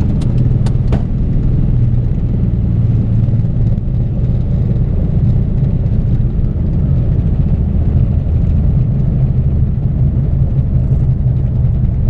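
Piper Cherokee 180's four-cylinder Lycoming engine running at idle as the plane rolls along the runway, a steady low drone heard from inside the cockpit. A few short clicks come about a second in.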